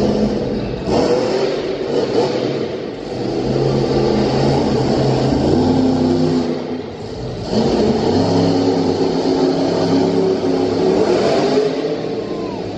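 Bigfoot monster truck's engine revving, its pitch rising and falling repeatedly, with a brief ease-off about seven seconds in before it picks up again.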